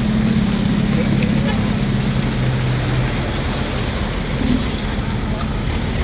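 A vehicle engine running steadily: a low, even drone over a wash of background noise.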